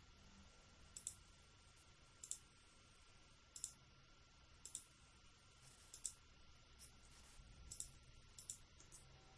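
Computer mouse clicking: about ten single, sharp clicks, roughly one a second, over faint room hiss.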